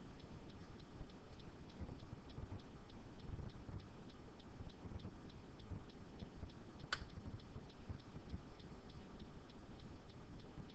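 Faint, regular ticking, about three ticks a second, over low room noise, with one sharp click about seven seconds in.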